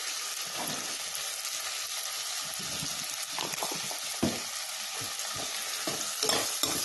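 Chopped tomato and fried onion sizzling in hot oil in a steel pot, a steady hiss with scattered crackles. Near the end a steel spoon stirs and scrapes through the mixture.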